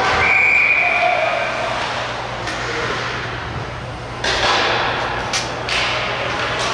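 Ice hockey rink sounds: sharp knocks and thuds of puck and sticks against the boards, echoing in the arena over a steady crowd-and-rink hiss. A steady high tone of about a second sounds near the start.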